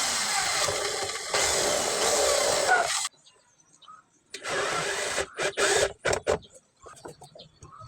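Electric power drill running, first in a long run of about three seconds, then in several short trigger pulses a little over a second later, as when driving screws for a cabinet hanger fitting.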